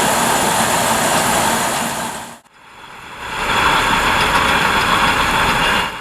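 Claas Lexion 770 TerraTrac combine harvester running while harvesting corn, a loud steady machine noise. It breaks off abruptly about two and a half seconds in, then fades back up and runs on.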